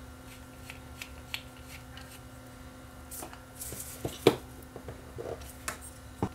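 Scattered light clicks and taps of a screwdriver driving a small screw through a metal heatsink on an amplifier IC, with the metal parts handled; the sharpest click comes about four seconds in, another just before the end.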